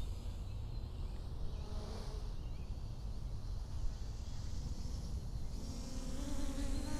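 Multirotor drone's propellers buzzing at a distance as it flies. The hum grows louder near the end as the drone comes closer.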